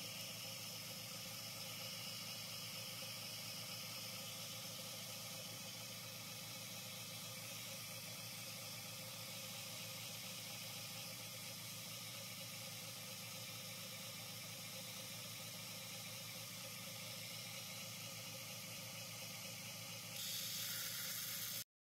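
Belt grinder running steadily, an even hum with hiss. Near the end the hiss gets brighter and louder for a moment, then cuts off abruptly.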